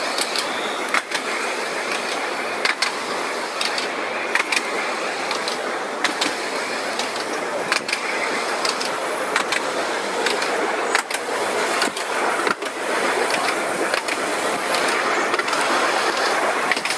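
Narrow-gauge electric tram running along its track: a steady rolling rumble of the wheels on the rails, with sharp clicks and knocks at irregular intervals.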